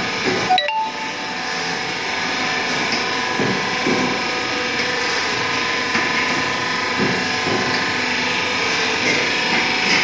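Cable tray roll forming machine running: a steady mechanical hum with several steady whining tones as perforated steel strip feeds through the forming rollers. There is a brief clatter about half a second in and a few faint knocks later.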